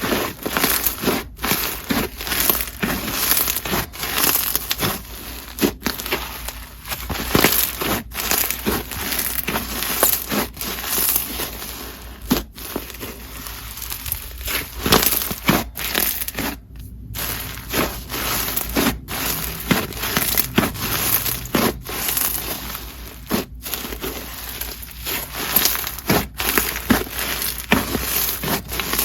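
Crunchy clear-based snow fizz slime being squished, stretched and pressed by hand, giving a dense, continuous crackling crunch of many small pops.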